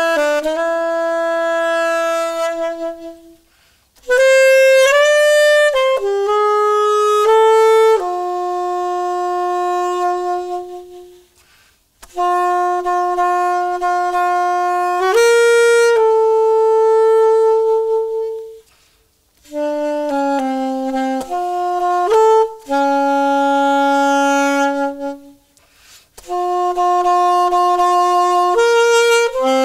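Background music: an unaccompanied solo wind-instrument melody with a saxophone-like tone, playing slow, long-held notes. It comes in phrases of several seconds with brief pauses between them.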